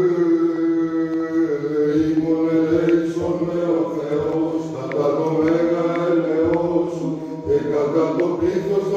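Byzantine-style church chant: a slow sung melody of long, gliding notes over a steady held drone note.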